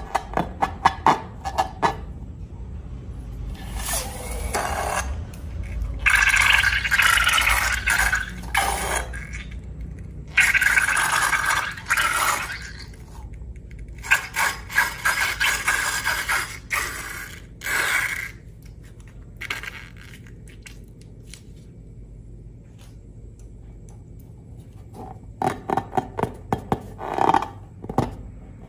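Slime being worked by hand in a bowl: long passages of scraping and squelching, broken up by runs of quick sticky clicks. It goes quieter for several seconds near the end, then the clicking resumes.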